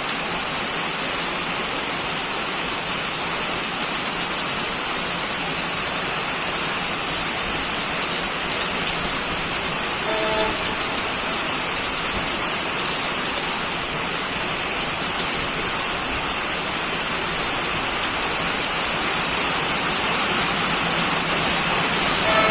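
Steady rain falling, an even hiss with no rhythm, with a faint short tone about ten seconds in.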